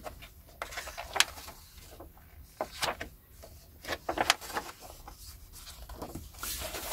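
Hardback books and a paper magazine being handled: scattered paper rustles and light knocks.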